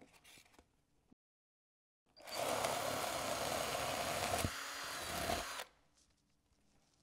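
Handheld power drill with a size-20 bit drilling a hole into polystyrene foam, starting about two seconds in and running steadily for about three and a half seconds before stopping.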